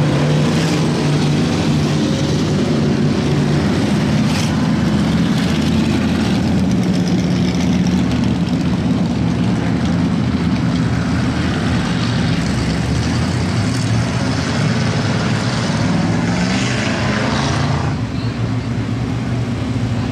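A field of stock V8 dirt-track race cars circling together at pace speed under caution, a steady, loud engine drone. The pitch rises once near the end as a car comes by.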